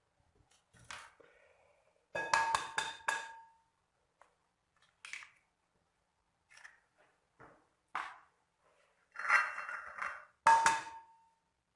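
Kitchen clinks against a glass bowl: a quick run of four ringing taps about two seconds in and another ringing clink near the end, with softer knocks and scrapes between.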